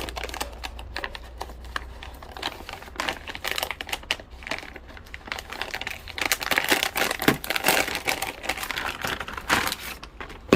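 Plastic packaging crinkling and rustling, with light irregular clicks and knocks, as a holster is unwrapped and handled.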